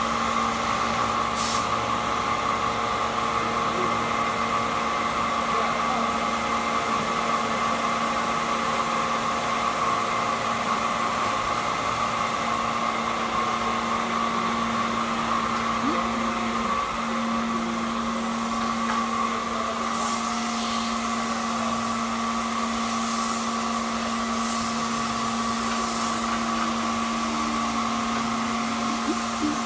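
Steady machinery hum with several constant tones, as from a motor or compressor running. Brief hisses come about a second in and a few more past the middle.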